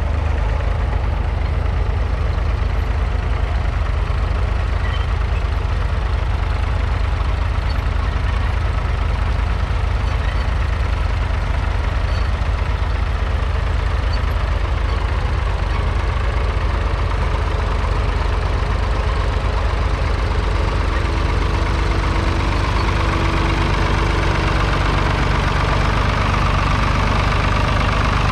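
1973 Ford 3000's 2.9-litre three-cylinder diesel engine running steadily under load while pulling a two-furrow mounted plough through the soil.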